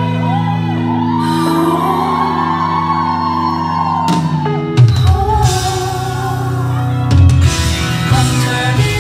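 Live pop music: male vocalists singing into microphones over a backing track, with a beat coming in about five seconds in.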